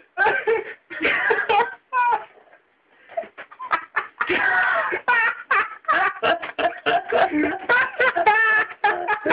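A fit of uncontrollable laughter, high and breathless, in quick choppy pulses. It pauses briefly about two and a half seconds in, then starts up again and runs on without a break.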